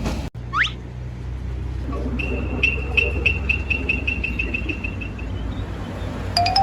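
A vehicle engine running steadily with a low hum. A string of rapid high beeps, about four a second, comes in from about two to five seconds in, and a rising run of short notes starts near the end.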